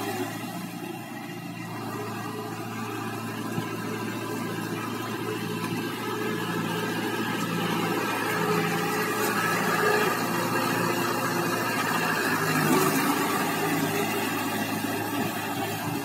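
Mahindra 475 tractor's diesel engine running steadily under load as the cage-wheeled tractor ploughs through flooded paddy-field mud, a little louder in the middle as it works close by.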